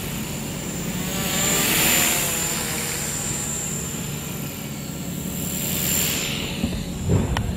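Walkera V400D02 electric flybarless RC helicopter flying nose-down funnels: a steady high motor whine with the rotor whoosh swelling and fading as it swings around, about two seconds in and again near six seconds. A short thump near the end.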